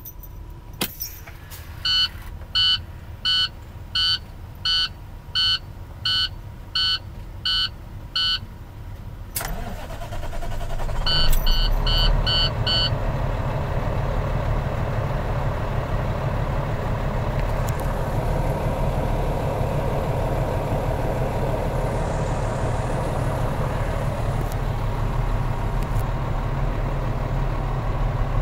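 Dashboard warning chime of a 2010 International 7600 diesel truck beeping about ten times, evenly spaced, with the key on. The starter then cranks and the diesel engine catches, while a few quicker beeps sound, and it settles into a steady idle at about 550 rpm.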